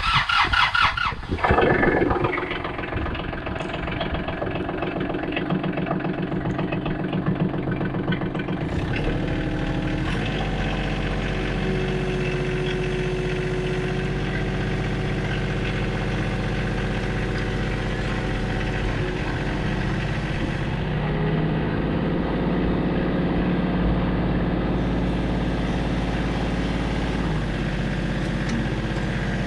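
Kubota L35 tractor's diesel engine cranked by its starter, catching within about two seconds and then running steadily. Its engine note shifts about nine seconds in and again in the second half.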